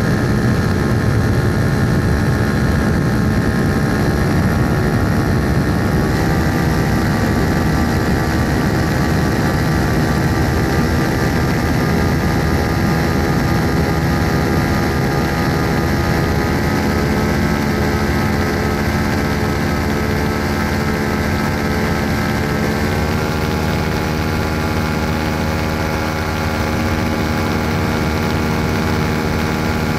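Propeller engine of a small aircraft running steadily in flight, heard on board with a low rumble of wind. Its pitch rises slightly about six seconds in and again, more plainly, a little past the twenty-second mark as the engine speeds up.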